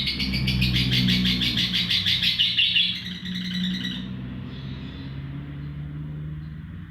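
Lovebird giving a long, rapid chattering trill (the 'ngekek' call), a fast run of high chirps that fades out about three to four seconds in. A steady low hum runs underneath.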